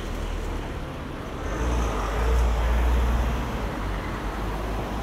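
A road vehicle passing close by: its low engine and tyre rumble builds to a peak two to three seconds in, then eases off over steady street traffic noise.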